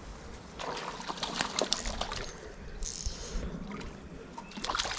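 Reeds and grass rustling and crackling close to the microphone in irregular bursts, over a faint trickle of water.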